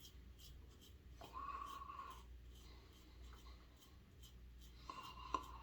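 Safety razor with a Kai double-edge blade scraping through lathered stubble in short, faint strokes. There are two longer strokes of about a second each and a sharp tick near the end.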